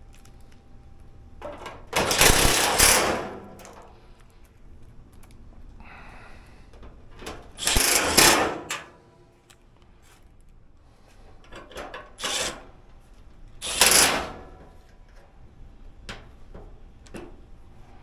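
Cordless drill-driver running in short bursts, driving screws into a dryer's sheet-metal front panel: three main runs of about a second each, a few seconds apart, with a shorter burst shortly before the last.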